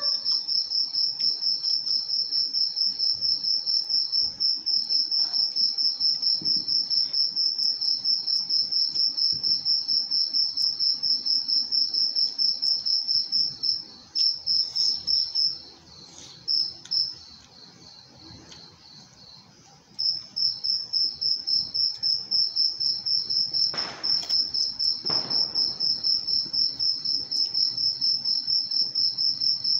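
Insect chirping, a steady high pulsing trill that stops for several seconds about halfway through and then starts again.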